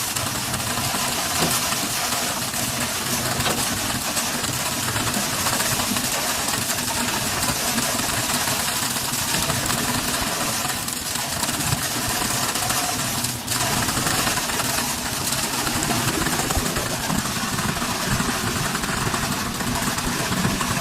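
Diesel engine of a concrete boom pump running steadily through a concrete pour, with a short dip in level about thirteen seconds in.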